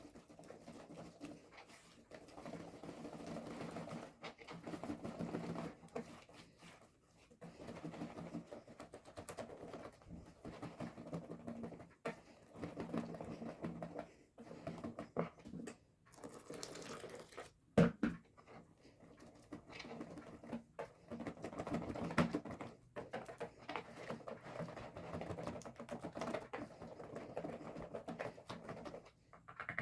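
Pancake batter being whisked by hand in a bowl: rapid clicking in bursts of a few seconds with short pauses, and one sharp knock about 18 seconds in.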